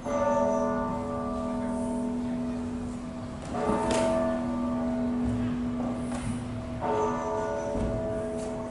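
Church bells of the Novodevichy Convent ringing: three strokes, at the start, about three and a half seconds in and about seven seconds in, each leaving a long ringing tone of several pitches.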